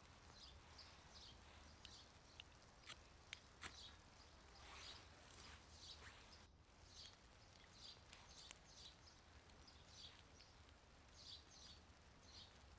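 Faint, near-silent ambience with many short, high chirps of small birds scattered throughout, and a few sharp clicks.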